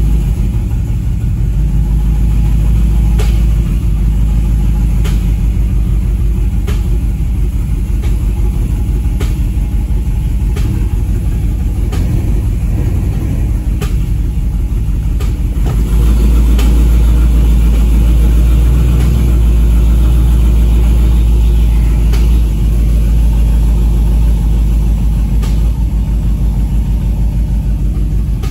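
2015 Camaro SS 6.2-litre V8 idling with a misfire that is pretty bad. A sharp tick sounds every second or two over the steady engine rumble, and the rumble gets a little louder about halfway through.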